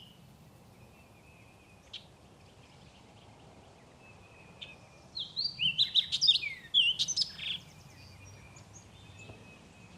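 A songbird singing a quick run of chirps and whistled notes, starting about five seconds in and lasting a couple of seconds, over faint steady background noise.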